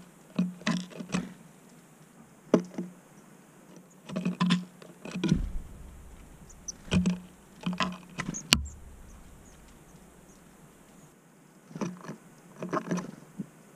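Tits pecking and hammering at peanuts in a feeder: bursts of quick taps several times, with a heavier knock about five seconds in and one sharp click a little past the middle.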